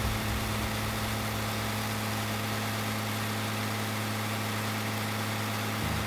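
John Deere tractor engine running at a steady speed, driving a grain cart's unloading auger, with an even hiss of shelled corn pouring into a grain trailer over the engine's hum.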